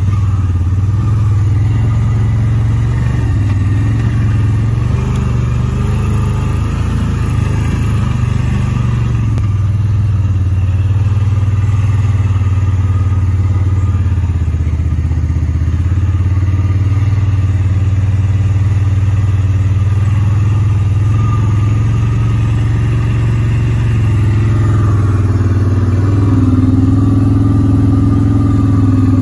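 Engine of a small off-road vehicle running steadily at low speed, with an even low drone. It gets a little louder near the end, with a higher tone joining in.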